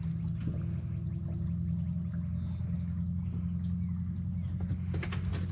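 A motor's steady low hum, unchanging in pitch, with a few light clicks and rattles near the end.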